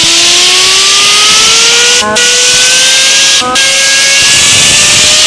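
Fidget hand spinner driven by a jet of compressed air from an air compressor: a loud hiss of air with a siren-like whine that slowly rises in pitch as the spinner speeds up. The air cuts out briefly twice.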